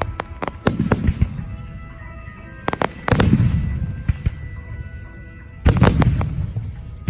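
Fireworks shells bursting: clusters of sharp cracks and deep booms, loudest about three seconds in and again near six seconds in, each boom trailing off in a low rumble. Music plays underneath.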